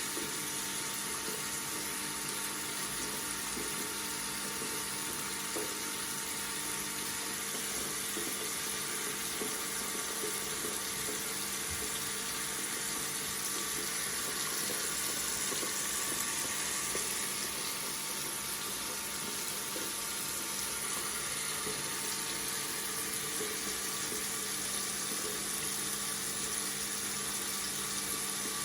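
Tap water running steadily from a faucet in an even, unbroken stream, with a faint steady hum beneath it.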